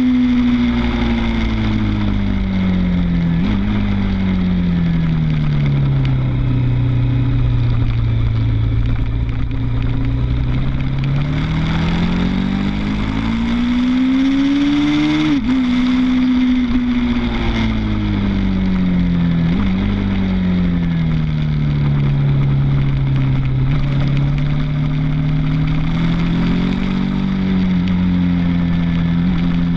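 Suzuki TL1000's V-twin engine at track speed, heard from the bike itself. Its pitch drops and holds low through a corner, then climbs steadily. About halfway through it dips sharply at a gear change and falls away, with a short step up a few seconds later, before climbing again near the end.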